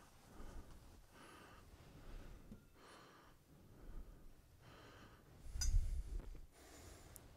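Soft rustling and handling sounds as altar vessels are cleaned and set aside at a side table, recurring about once a second like quiet breaths. A louder thump with a sharp click comes about five and a half seconds in.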